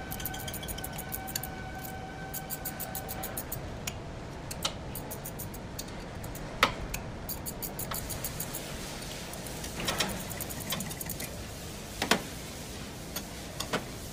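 Wrench work on the steel bolts of a screw compressor's oil separator tank cover: rapid, even ticking with a few sharper metal clinks. A steady high whine in the background stops about three seconds in.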